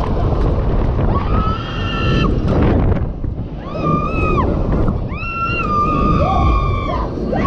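Rushing wind buffeting the microphone as the thrill ride's arm swings the rider through the air, with three high, held screams from riders, the last one about two seconds long.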